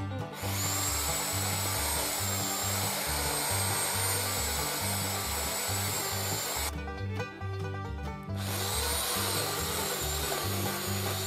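Pole saw (a chainsaw on an extension pole) cutting into a tree limb with a high, wavering whine. It stops for a moment past the middle and then cuts again. Bluegrass banjo music plays underneath.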